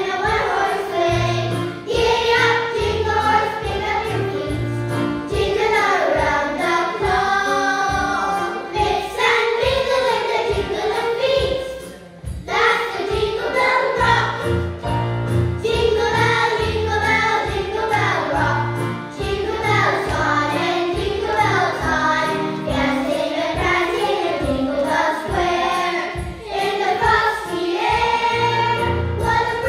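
A children's choir sings a Christmas hymn over an instrumental accompaniment with a steady low bass line. There is a short break between phrases about twelve seconds in.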